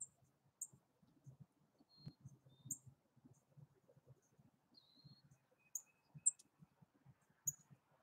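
Small songbirds giving short, high chip calls every second or so, with a few brief thin whistled notes, over faint irregular low taps.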